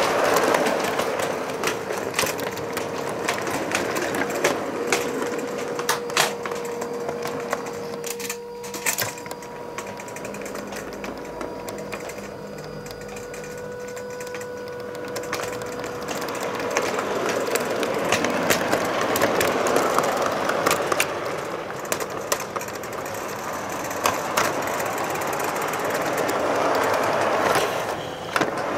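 Model train rolling on metal track, heard from a car close behind the wheels: a steady mechanical rattle with frequent small clicks. It turns quieter with a faint steady whine around the middle, then grows louder again.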